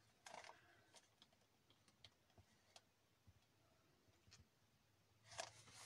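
Near silence, broken by a few faint, widely spaced light ticks and a soft paper rustle as fingers press a small paper cutout onto a card.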